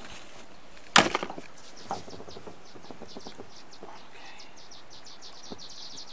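A sharp knock with a short rattle about a second in, then a steady run of faint, high, rapid ticks.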